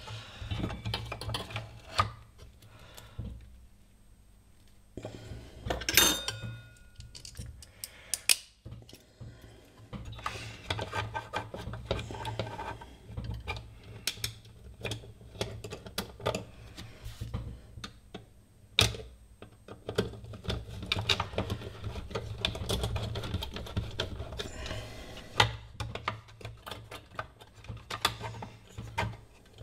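Small screws, a metal mesh fan guard and a case fan being handled and screwed into place, giving a string of light metallic clicks, ticks and rattles. There are a few sharper knocks, the loudest about 6 s in and another about 19 s in, all over a low steady hum.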